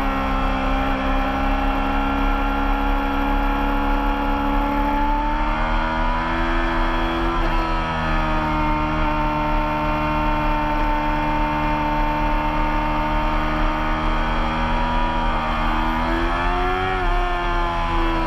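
Racing motorcycle engine running hard at high revs, held at a nearly steady pitch through a long corner. The pitch rises a few seconds in, and near the end climbs briefly and then drops again as the throttle changes.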